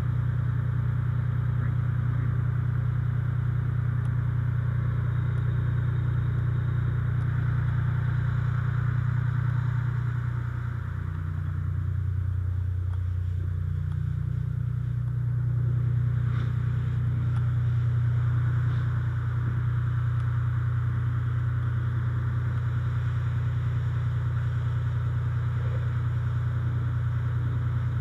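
Fire engine's diesel engine running steadily to drive its fire pump, a low drone. Its pitch drops for a few seconds about ten seconds in, then comes back up.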